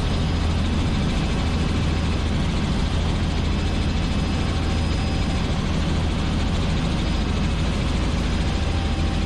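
Helicopter cabin noise in flight: the engine and rotor give a steady, loud drone with a strong low hum.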